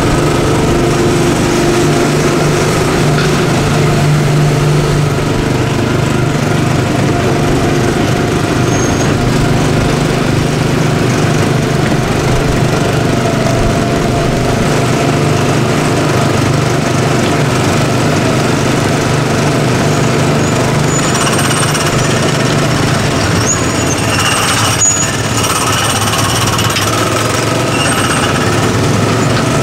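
Small gasoline engine of a Tomorrowland Speedway ride car running loud and steady with a rattly drone. Higher-pitched tones join in about two-thirds of the way through.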